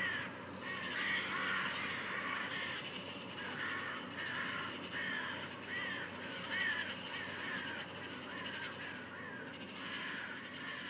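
Crows cawing over and over, one or two harsh caws a second with several birds overlapping, above a steady background hiss. It eases off a little toward the end.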